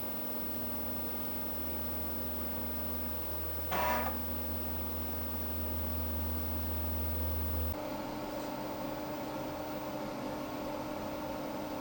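Dimension 68000 desktop computer running, a steady mechanical hum with a short louder whirr about 4 s in; a deep low hum cuts off suddenly about 8 s in and the steady tone shifts slightly higher.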